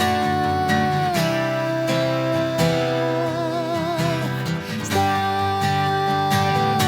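Instrumental break in a pop-rock song: strummed guitars under a held lead melody that steps down about a second in, wavers with vibrato partway through, and returns to its higher note near the end.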